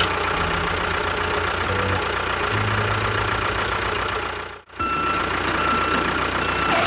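A vehicle engine running with a steady, rattling low pulse. It cuts out briefly near the middle, then runs on with an intermittent high beep like a reversing alarm.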